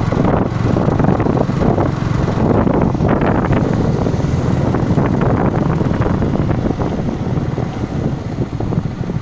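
Riding noise from a Yamaha R15 V3 motorcycle on the move: wind rushing over the microphone mixed with the steady hum of its 155 cc single-cylinder engine.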